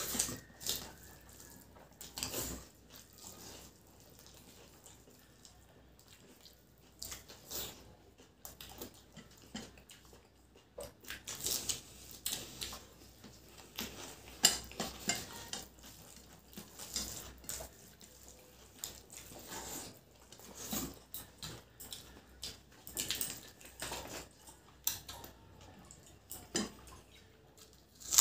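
Eating rice and egg curry by hand from stainless steel plates: fingers scrape, mix and tap the food against the metal in irregular short scrapes and clicks, along with chewing and lip-smacking.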